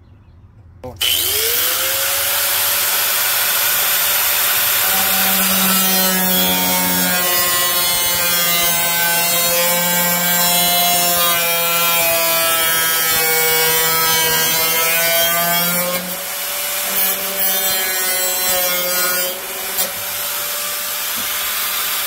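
Angle grinder with a cut-off disc spinning up about a second in, then cutting through a steel computer-case side panel: a loud steady whine whose pitch sags and recovers as the disc bites. The load eases in the last third, with a couple of brief dips.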